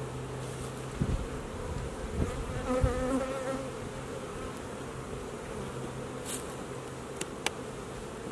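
Honey bees buzzing in a steady hum over an open hive, with one bee buzzing close by, its pitch wavering, around three seconds in. A few dull knocks as frames and the hive tool are handled, about a second in and again near two and three seconds, and a couple of sharp clicks near the end.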